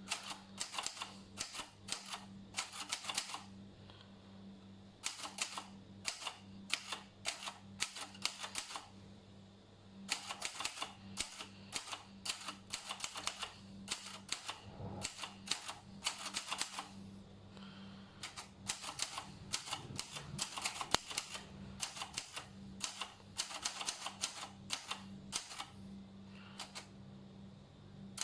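Typewriter keys clacking in quick runs of keystrokes, with short pauses between runs, over a steady low hum.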